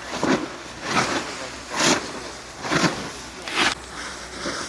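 Edges scraping and hissing over snow in a run of turns down a ski slope, five swishes a little under a second apart.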